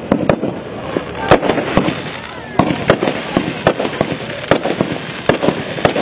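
Fireworks display: aerial shells bursting in a rapid, irregular run of sharp bangs and crackles, several a second. The loudest bang comes about a second and a half in.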